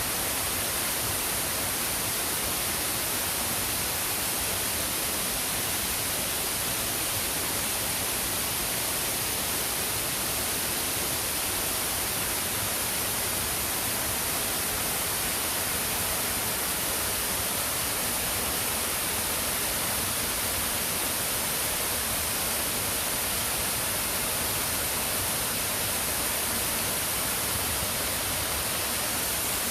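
Waterfall: an unbroken, steady rush of falling water, an even hiss that does not change.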